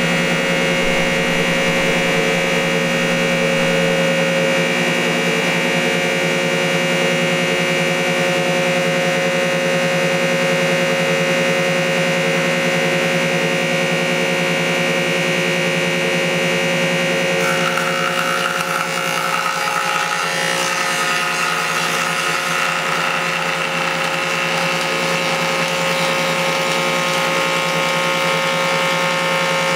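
Old Krumrein & Katz jointer running steadily, its three-knife cutter head giving a constant whine over the machine's hum. A little over halfway through, the knives start cutting into a 20 cm wide ash board taking off 3 mm, and a rougher, higher cutting noise joins the whine and carries on.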